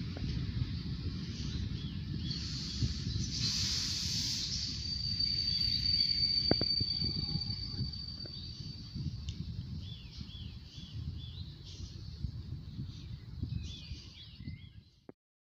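A shunting train of open coal wagons hauled by an SM42 diesel shunter rolls slowly away, its wheels rumbling and crackling on the rails and slowly fading. About three seconds in there is a brief hiss, followed by a thin steady high squeal lasting a few seconds, with small high chirps now and then.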